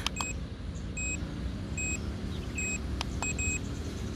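Drone remote controller giving short, high warning beeps about once a second, some in quick pairs: the drone's low-battery alarm. A steady low rumble runs underneath.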